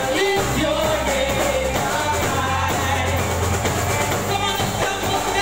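A band playing a rock-style song: drum kit, electric guitars and bass, with a sung melody over sustained bass notes.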